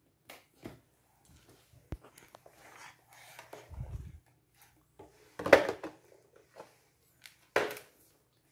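Scattered taps and knocks of a baby handling the plastic toy tray of a baby walker and a milk bottle, with two louder knocks in the second half.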